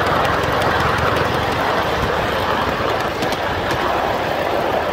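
5-inch-gauge live steam locomotive Ajax running along the track: a steady rushing noise with no break.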